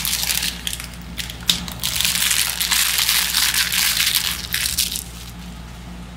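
Metal spatulas chopping and crushing cookies and strawberries on a frozen rolled-ice-cream plate: quick crisp strikes at first, then a dense, steady crunching and scraping that stops suddenly about five seconds in.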